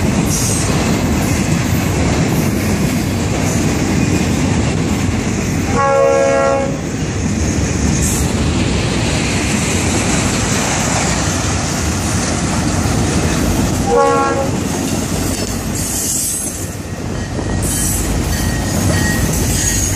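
Florida East Coast Railway intermodal freight train passing close by: a steady, loud rumble and clatter of the flatcars' wheels on the rails. A train horn sounds briefly twice over it, about six seconds in and again, shorter, about fourteen seconds in.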